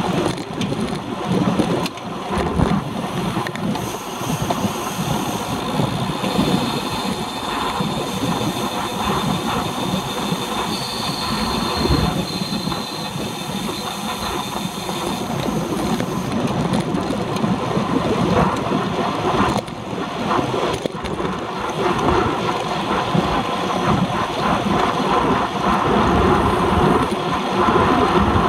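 Wind and road noise on a handlebar-mounted camera on a road bike riding at race speed in a pack. It makes a steady rushing noise with tyre rumble and no clear breaks.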